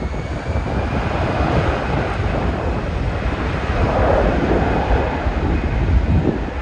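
Jet airliner taking off, its engine rumble heavily buffeted by wind on the microphone, with a faint high whine rising slowly in pitch.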